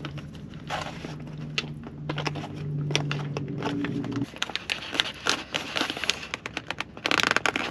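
Freeze-dried meal pouch crinkling and rustling as a long-handled spoon stirs the rehydrating lasagna inside, with irregular scraping clicks, then a louder crinkle near the end as the top of the pouch is pressed shut. A low steady hum runs underneath and stops about four seconds in.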